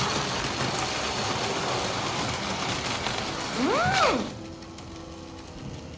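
A crisp homemade potato chip crunching loudly in the mouth as it is chewed, a dense crackle. About four seconds in, a short voiced 'mmm' rises and falls in pitch, then a faint steady hum is left.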